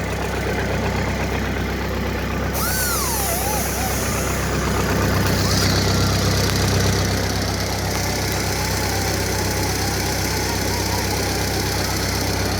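The flathead engine of a Lincoln engine-driven arc welder, idling steadily.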